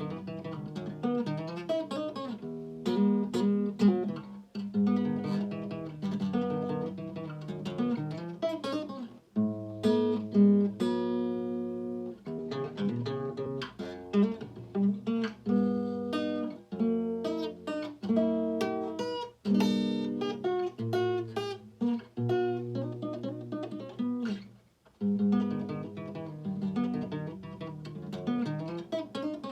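Guitar played fingerstyle: quick plucked melody notes and chords over ringing bass notes, with one chord left to ring about ten seconds in and a short break shortly before the end.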